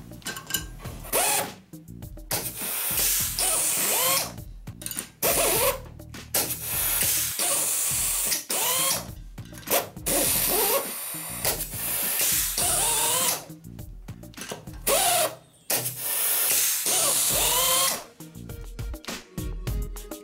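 SUMAKE ST-6355 air-hydraulic rivet nut tool cycling again and again as it spins M5 rivet nuts on, pulls them up into a metal sheet and spins back off. Each cycle is a burst of air hiss and motor whine, with short breaks between them.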